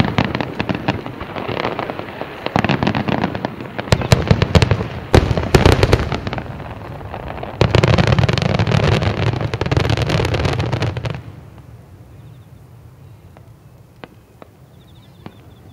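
A barrage of aerial firework shells bursting in quick succession, a dense stretch of bangs that is loudest from about eight seconds in and stops abruptly about eleven seconds in. A few single bangs follow.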